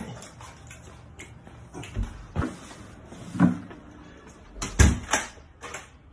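A wooden room door being handled: a few separate thumps and knocks, the loudest a heavy thud about five seconds in as the door shuts.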